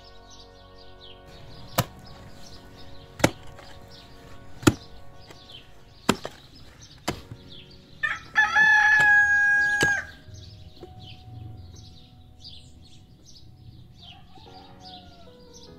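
A digging tool's metal head striking stony soil five times, about every second and a half, then a rooster crows once, loudly, for about two seconds. Small birds chirp throughout, over faint background music.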